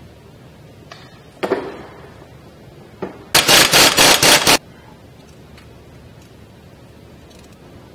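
Pneumatic impact wrench hammering in a loud rattling burst of just over a second, loosening a fastener on the front wheel hub. A single metallic clank comes a couple of seconds earlier.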